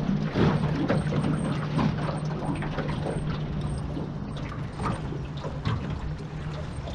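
Fishing reel clicking irregularly as it is worked, over a steady low hum.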